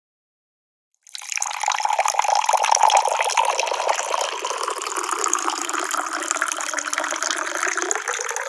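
Running water: a steady splashing rush that starts about a second in.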